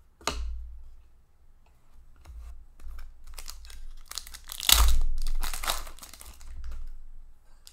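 Foil trading-card pack wrapper being torn open and crinkled, the loudest rip about four and a half seconds in, with scratchy handling noise after it and a short scrape just after the start.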